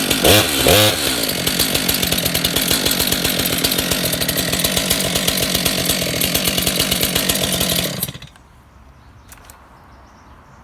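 Stihl MS 462 two-stroke chainsaw running just after a cold start, warming up. It revs up and back down once near the start, runs steadily, then shuts off abruptly about eight seconds in.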